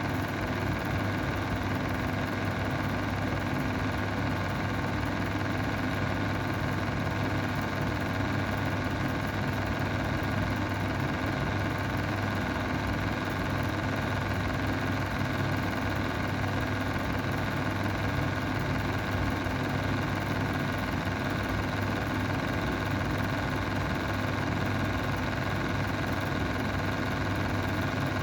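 Mistral square window exhaust fan running with a steady hum that never changes, the sound of a fan whose bearings are bad.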